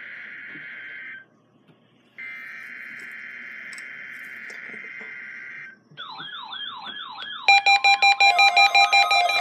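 EAS SAME header data bursts: a harsh two-tone digital screech that stops for about a second and then repeats. About six seconds in, a warbling alert tone starts. A second or so later a louder, fast-pulsing beep alarm joins it, as the alert receivers go off for the required weekly test.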